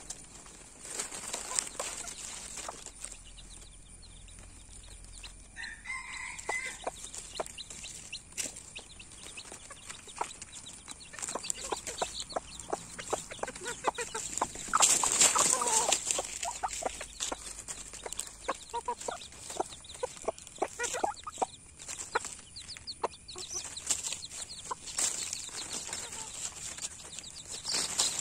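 Chickens clucking while foraging, with dry leaves crackling and rustling under their feet and beaks throughout. A brief call comes about six seconds in, and a louder scuffle of rustling about halfway through.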